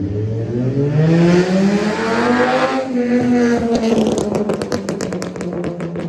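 Straight-piped VW Jetta 2.5 inline five-cylinder revving hard through first gear, its pitch rising, then dropping near the 3-second mark as it shifts into second. From about 4 seconds in the exhaust lets out a rapid series of pops and crackles on lift-off.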